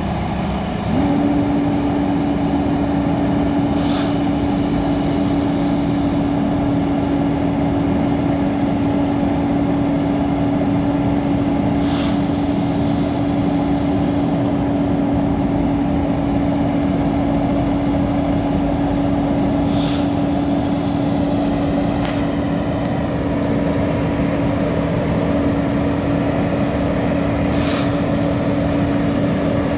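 Diesel engine of a Freightliner M2 concrete pump truck running steadily, stepping up to a higher, held speed about a second in. A short sharp hiss cuts through about every eight seconds.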